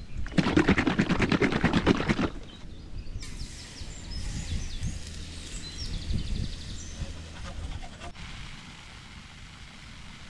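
Pancake batter shaken hard in a plastic bottle: a rapid sloshing rattle for about two seconds. A steady hiss follows, likely the camping gas stove burner, easing off near the end, with birds chirping faintly.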